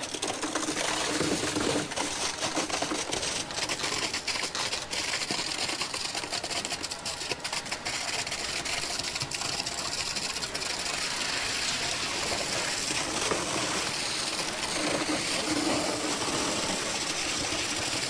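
Concrete being pumped through a concrete pump's rubber delivery hose into ICF foam wall forms: a steady mechanical running noise, with a quick patter of clicks and knocks through the first half as the concrete drops into the forms.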